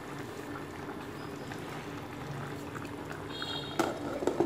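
Fish braising in a stainless steel pot on an induction cooker, bubbling steadily at a simmer. Near the end a glass lid is set down on the pot with a brief ring and two clinks.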